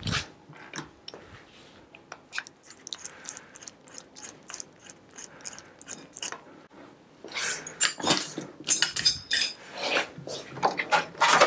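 Metal hand tools and bicycle parts clinking and knocking while a bike frame is dismantled: scattered light clicks at first, then busier, louder metallic clattering with brief ringing from about halfway through.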